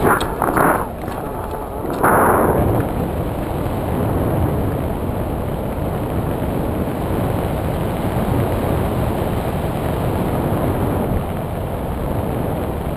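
Wind rushing over and buffeting a pole-mounted camera's microphone in paragliding flight, a steady low rumble with two stronger gusts in the first couple of seconds.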